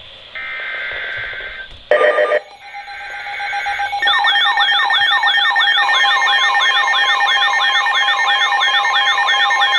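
Emergency alert tones: two brief screeching data bursts of the alert header with a short loud blip between them, then from about four seconds a loud warbling, siren-like alarm that sweeps down about three times a second, signalling a new tornado warning.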